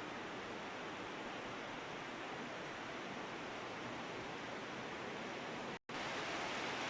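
Heavy rain falling, a steady even hiss, with a split-second gap near the end.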